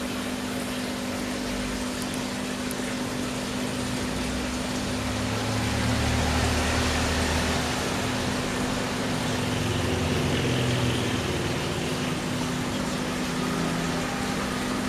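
Small aquarium water pump humming steadily with water running and splashing through the connected tanks. A low rumble swells from about five seconds in to about eleven seconds in.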